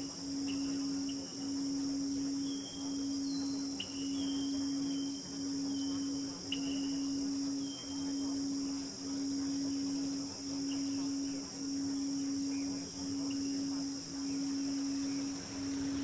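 Crickets chirring steadily, with a low steady tone that pulses about every second and a quarter. Short high whistled notes come and go in the first half.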